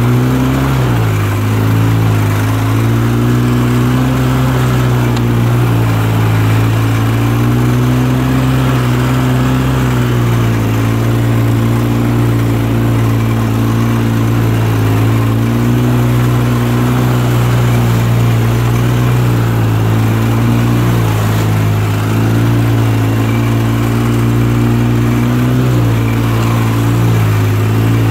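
Polaris Sportsman 700 Twin ATV's twin-cylinder engine running at low speed, its pitch rising and falling every few seconds as the throttle is eased on and off.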